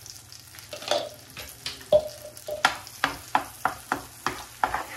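A spoon and then a spatula scraping and knocking against a kadhai while stirring ground masala paste frying in hot ghee, with a faint sizzle underneath. There is one sharp knock about two seconds in, then quicker strokes of about three a second.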